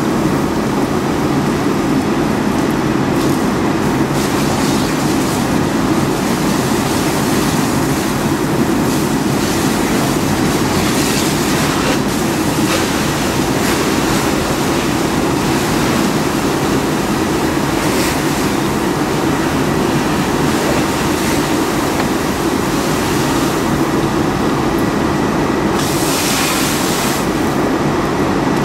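Steady loud rushing roar of a fire hose stream spraying water onto a burning Chevy Avalanche, mixed with the fire and the hiss of steam, sharper near the end.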